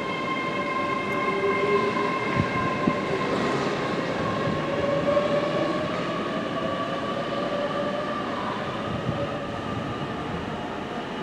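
Passenger train running through the station: rumbling wheel and rail noise with a steady whine of several tones that drifts slightly in pitch, easing off a little near the end.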